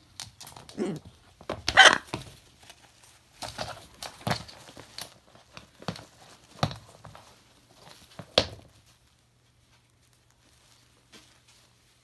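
Hyacinth macaw biting and ripping at a fabric slipper: irregular tearing and scuffling noises with sharp knocks, loudest about two seconds in, dying away for the last few seconds.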